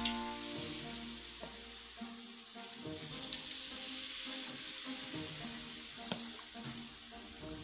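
Rice-flour and anchovy peyek batter sizzling in plenty of hot oil as ladlefuls are spread along the side of a wok, with a few sharp clicks of the metal ladle against the pan.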